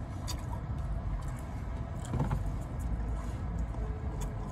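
Steady low rumble of a vehicle, heard inside a van's cabin, with faint clicks of chewing.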